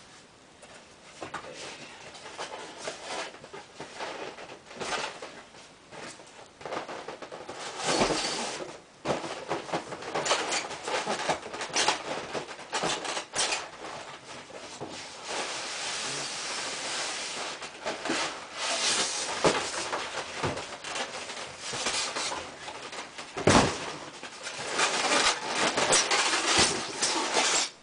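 A cardboard box being pulled open by hand and its packing handled: continuous rustling and scraping of cardboard and packing material, with frequent clicks and a few louder knocks.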